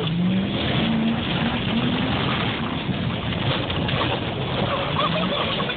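Dodge Ram 1500 pickup driving across a rough dirt field track, heard from inside the cab: the engine's note rises over the first two seconds as it speeds up, over a steady rumble of driving noise.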